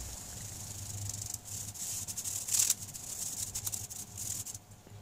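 Flour being rubbed by hand through a fine stainless steel mesh sieve: a dry, scratchy hiss in uneven strokes, loudest a little past the middle, that dies away shortly before the end.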